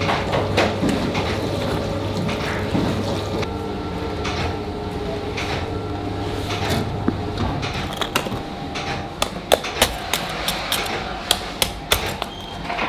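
Spiral dough mixer running with a steady hum, which drops away a little past halfway. Sharp, irregular knocks follow as blocks of ice churn against the spiral hook and the metal bowl in the mixing dough.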